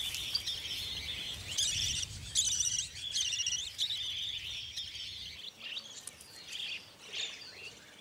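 Budgerigars chirping and twittering in quick, busy runs that thin out and grow quieter after about five seconds.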